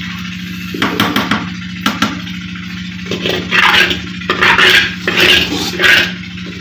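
Steel ladle stirring and scraping semolina as it roasts in oil in a large metal wok. A few clinks come about a second in, then from about three seconds in a run of scraping strokes about two a second, over a steady low hum.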